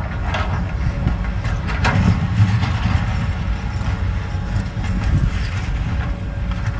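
Cat 320D excavator's diesel engine running steadily under load, with stone scraping and clanking in the bucket, the busiest clatter about two seconds in.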